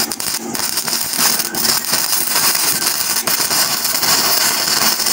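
Stick (SMAW) welding arc from an E6011 electrode, crackling and sizzling steadily as a tack weld is laid on a plate fit-up.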